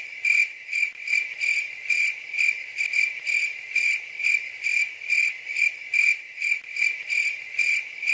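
Cricket chirping sound effect: an even run of high chirps, about two or three a second, the stock cartoon cue for an awkward silence.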